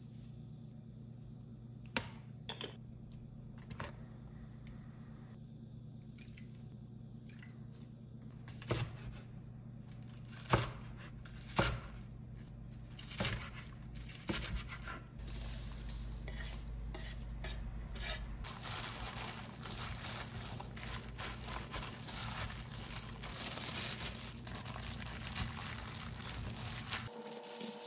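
Kitchen food-preparation sounds from making kkakdugi (cubed radish kimchi): a handful of separate sharp knocks, then, from about two-thirds of the way in, a dense continuous rustling and crinkling. A low steady hum runs underneath.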